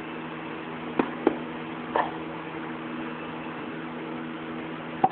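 A few light clicks and knocks of a plastic paintball loader being handled as its nose cone is opened, over a steady mechanical hum. The clicks come about a second in, again soon after, at about two seconds, and once more sharply near the end.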